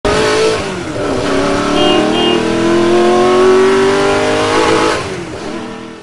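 Car engine sound effect, revving and accelerating with its pitch rising slowly, then fading out near the end.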